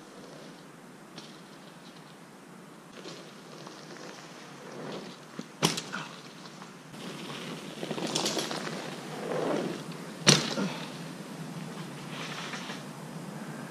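Mountain bike on a dirt trail: two sharp knocks about five seconds apart, the second the louder, with a rushing noise swelling between them.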